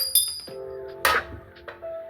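Lo-fi hip hop background music with a steady beat, with a sharp metallic clink that rings briefly right at the start and another strike about a second in.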